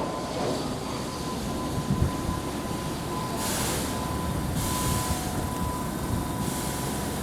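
Keihan limited express train pulling into the station, running with a steady low rumble, a faint thin steady tone and three short hisses, about a second apart, from about three and a half seconds in.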